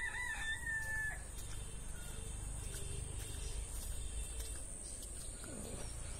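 A rooster crowing once, its drawn-out, slightly wavering call ending about a second in, over a steady low rumble.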